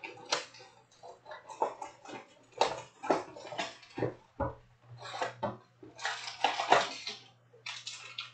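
A Panini Prizm trading-card box and its foil packs being handled and opened by hand: irregular crinkling, rustling and light knocks of cardboard and wrappers.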